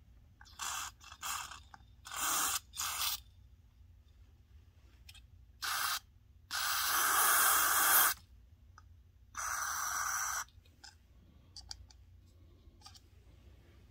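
Aerosol contact cleaner sprayed through an extension straw onto the metal leaf contacts of a small switch, cleaning off the dirt that keeps them from making contact. It comes as a series of short hissing spurts, then two longer ones of about a second each in the second half.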